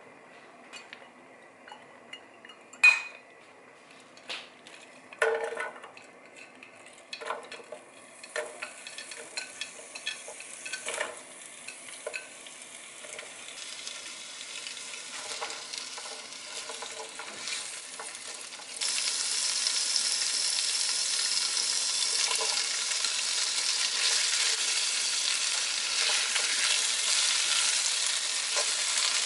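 Sliced onions, mini sausages and fish cakes sautéing in a frying pan over medium heat. A few sharp knocks and clinks come first as pieces land in the pan. The sizzle then slowly builds and turns suddenly louder about two-thirds of the way through.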